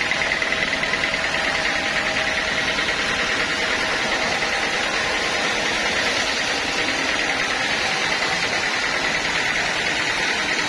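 Band sawmill running steadily: an even mechanical noise with a thin, high, held whine over it.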